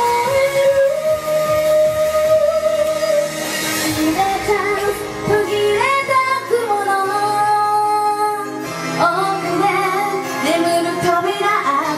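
Female idol singer singing a J-pop song live into a handheld microphone over pop accompaniment, with long held notes and several upward swoops in pitch.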